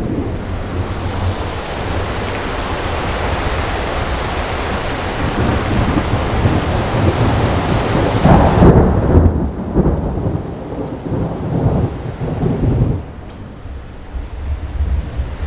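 Thunderstorm: the steady hiss of heavy rain, then a long rolling rumble of thunder that is loudest a little past halfway and dies down a couple of seconds before the end.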